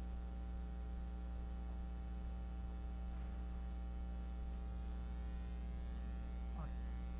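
Steady electrical mains hum with a stack of even overtones, constant in pitch and level.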